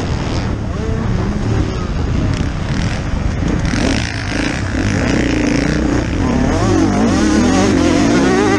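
Motocross dirt-bike engine under hard riding, its revs repeatedly rising and falling as the rider accelerates, shifts and rolls off for the bends, with wind rushing over a helmet-mounted microphone.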